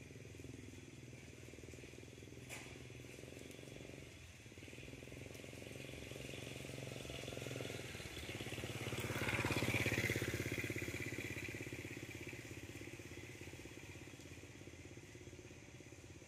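A motorbike engine passing by. It grows louder to a peak about ten seconds in, then fades away.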